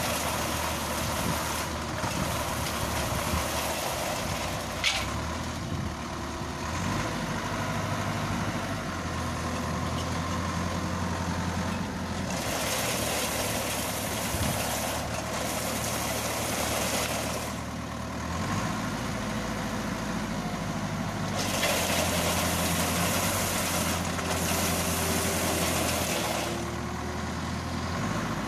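Engine of a homemade olive-harvesting machine running steadily, its note shifting up and down several times as its hydraulic boom works the frame into the trees. Two stretches of rushing noise a few seconds long ride over it, and there is a single sharp click about five seconds in.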